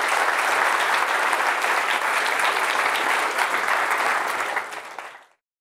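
Audience applauding, a steady mass of clapping that fades out and stops about five seconds in.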